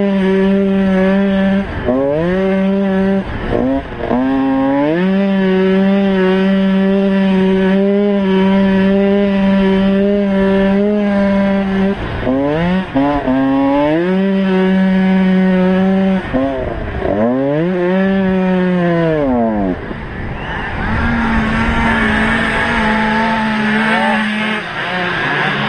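Motocross bike engine at racing speed, heard from on the bike: a steady, high engine note whose revs drop and climb again several times, with a longer dip and climb about two thirds of the way through. In the last few seconds the engine note weakens under a rougher, noisier sound.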